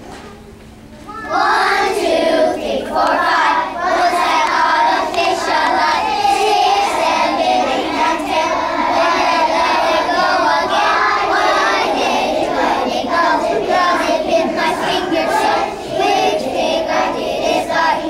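A group of kindergarten children singing a song together, starting about a second in.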